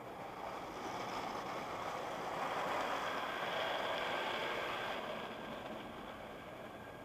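Automatic car wash spray nozzles sheeting foam and water over the windshield and body, heard from inside the car: a steady hiss of spray that swells for a few seconds and then slowly fades.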